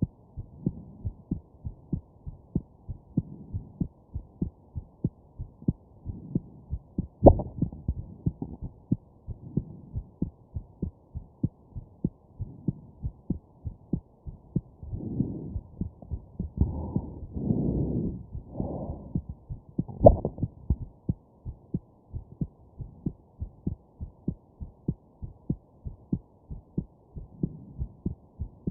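Human heartbeat heard close through a chest microphone: steady, even lub-dub thumps. Two much louder sharp jolts about 7 and 20 seconds in are hiccups. A stretch of softer rushing noise runs in the middle.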